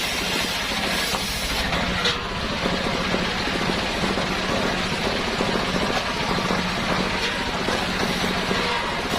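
Engine-driven homemade circular saw running steadily, with a low even pulse; the high hiss drops away about two seconds in and returns near the end.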